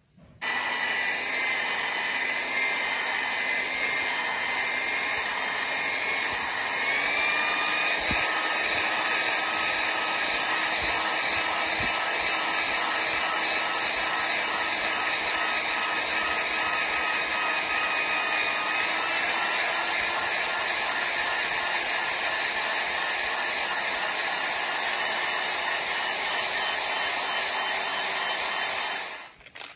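Electric drill running steadily, spinning a roll of sandpaper on a rod inside a brake master cylinder bore to polish it. Its pitch steps up slightly about seven seconds in and again later, and it stops just before the end.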